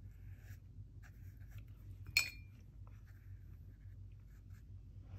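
Faint, soft strokes of a flat watercolour brush on paper, with one sharp, light clink about two seconds in.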